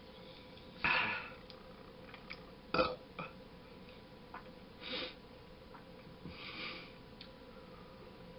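A man burping after gulping carbonated water from a bottle: a loud burp about a second in, a short sharp one near three seconds, then softer ones later.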